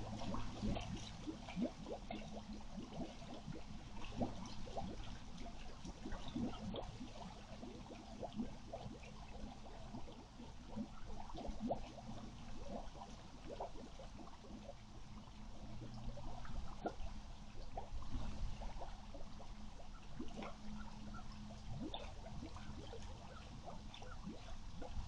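Floodwater from a broken above-ground pool running and trickling, with many small irregular splashes and gurgles and a faint low hum underneath.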